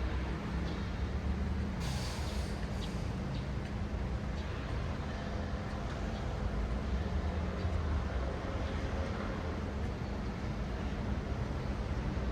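City street traffic: vehicle engines running with a steady low rumble. A short hiss comes about two seconds in.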